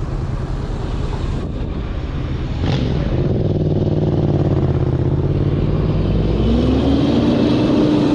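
Road traffic with a motor vehicle's engine: it grows louder about three seconds in, then its pitch rises near the end as it accelerates.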